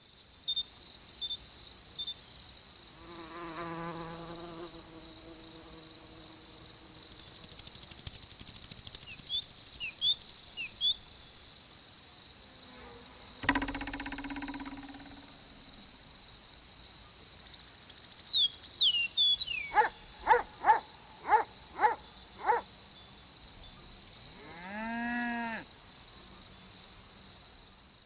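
Cartoon insect sound effects: a steady, high cricket-like trill throughout, with short squeaks and chirps over it. About halfway there is a brief thud, and near the end a row of five short quick calls, then one call that rises and falls.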